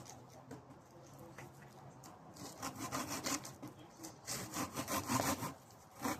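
A blade rasping back and forth in quick, even strokes on a birch stick, cutting a spiral scroll pattern into the wood. The strokes are faint at first, louder from about halfway through, and stop briefly near the end.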